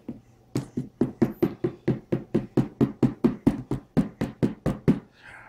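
Rapid, even knocking or tapping on a hard surface, about five strokes a second, starting about half a second in and stopping near the end.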